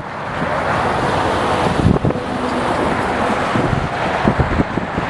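Strong wind buffeting the microphone in gusts, with road traffic going by.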